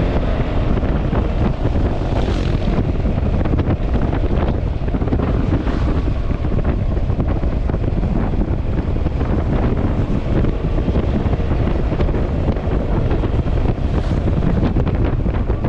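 Wind rushing over the microphone while riding a Yamaha Xmax scooter at speed, with the road and engine noise running underneath.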